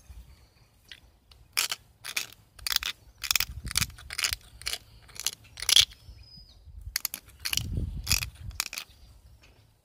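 Pressure flaking of a stone point: a hand-held flaker is pressed against the stone's edge over a leather hand pad, giving about a dozen irregular sharp clicks and snaps as small flakes pop off. The loudest snap comes a little past halfway, and there are a couple of dull low rubbing sounds from the hands and pad.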